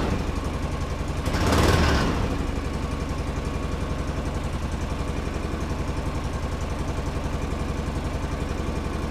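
Polaris Ranger XP 700 utility vehicle's engine idling with a steady, even pulse, with a brief louder rush of sound about one and a half seconds in.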